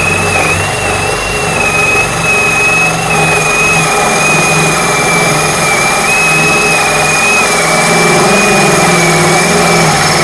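DEKTON cordless drill turning a core bit through a brick wall at speed: a continuous grinding with a high, steady whine that wavers slightly in pitch.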